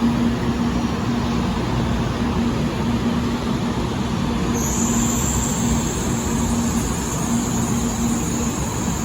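Steady rushing background noise with a low hum at a railway platform, with no clear pass-by swell. A thin, high-pitched whine sets in about halfway through and holds steady.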